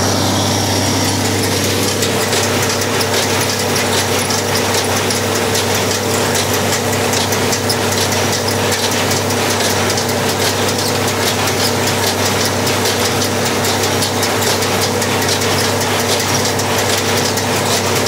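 Farmall 806 tractor engine running steadily under load while a New Holland 565 square baler works behind it, its mechanism giving a fast, continuous clicking over the engine's drone.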